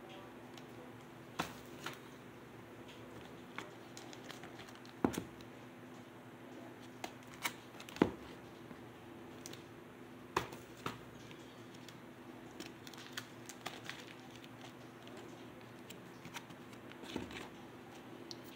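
LP record jackets in plastic sleeves and cellophane being handled and swapped: scattered crinkles, taps and sharp knocks, the loudest about 5 and 8 seconds in, over a faint steady hum.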